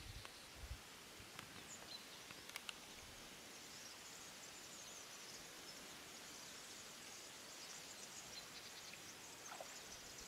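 Near silence: faint outdoor background hiss, with a few soft clicks in the first three seconds and scattered faint high chirps.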